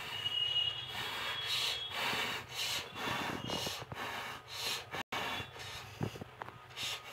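A person breathing hard in quick, noisy breaths, about one a second.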